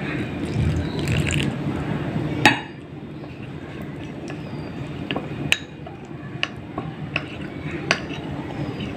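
Metal teaspoon clinking against a small glass bowl as cornflour is stirred up with water: a sharp tap about two and a half seconds in, then a run of separate clinks in the second half.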